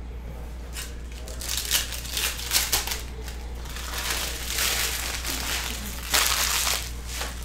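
Trading-card pack wrappers crinkling and crumpling in several bursts of about a second each as packs are torn open and handled.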